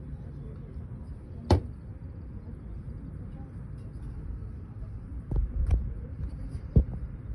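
Sharp knocks from soldiers' drill on marble paving: one sharp crack about one and a half seconds in, then a cluster of three or four knocks between about five and seven seconds, over steady background noise.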